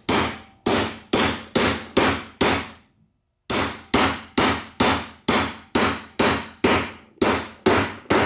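Hammer blows on a metal seal driver, tapping a rear seal into a Borg-Warner T5 transmission's aluminium extension housing: a steady run of sharp metallic taps, about two a second, with a short pause about three seconds in.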